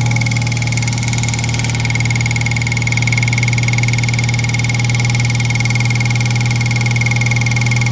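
2003 Mitsubishi Eclipse engine idling steadily, with a steady high whine over it. The clacking noise is still present after the belt tensioner was straightened; it is suspected to come from the timing belt and tensioner area after a water pump installation.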